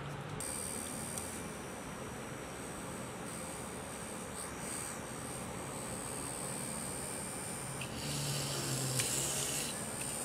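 Small 12 V DC motor of a homemade mini drill press running with a steady high whine. About eight seconds in, a louder rough hiss lasting about two seconds as the bit drills into a thin wooden stick.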